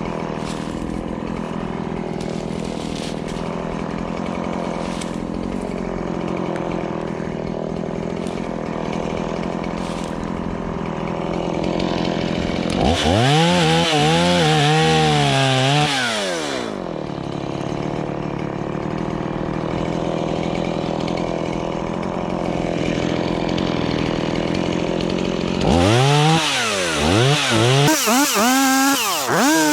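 Chainsaw idling steadily, then revved up for about four seconds around the middle and revved in several short bursts near the end.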